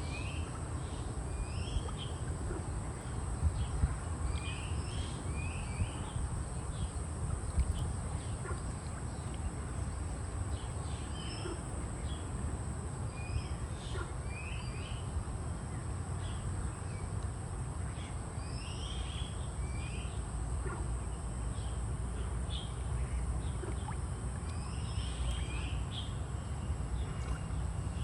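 Birds chirping in short, quick calls every second or two, over a steady low rumble and a constant high-pitched hiss.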